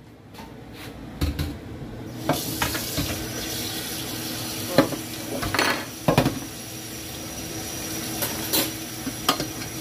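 Kitchen tap running into a stainless steel sink, starting about two seconds in, as cooked pasta is drained from a stainless saucepan. A metal spoon clanks against the pot several times.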